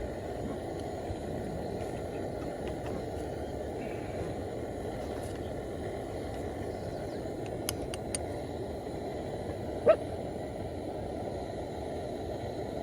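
Steady wind rumble buffeting the microphone, with a couple of faint clicks and one short, sharp cry near the end.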